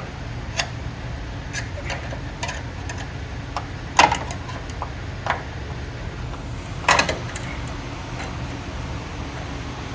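Scattered metallic clicks and clinks of hand tools and car parts being handled, with two louder knocks about four and seven seconds in, over a steady low hum.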